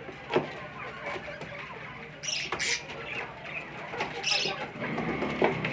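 Pet budgerigars chattering: busy high chirps and clicks, with two brief harsh, scratchy bursts about two and a half and four seconds in.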